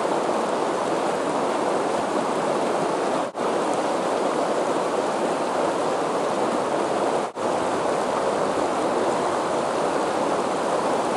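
Fast-flowing river rushing over a rocky bed: a steady, loud rush of white water, cut by two momentary dropouts about three and seven seconds in.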